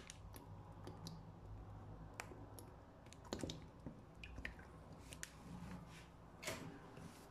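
Faint, irregular ticks and small crackles from oil heating in a nonstick frying pan, over a low steady hum.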